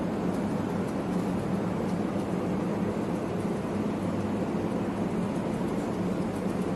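Steady mechanical drone of building machinery, such as ventilation plant, with a constant low hum under an even rushing noise.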